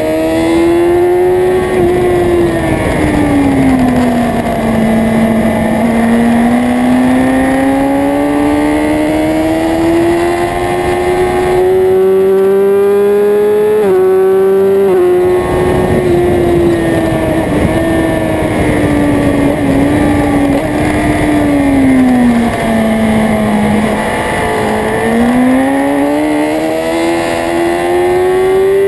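Onboard sound of a sports motorcycle at speed on a circuit: the engine note sinks as it slows for a bend, then climbs steadily under power. There are sudden pitch drops at upshifts about halfway through and again at the end, with wind rushing over the microphone.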